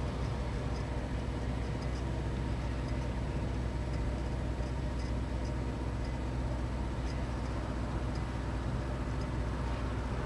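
Steady low engine and road rumble from inside a slowly moving car, with a few faint scattered ticks.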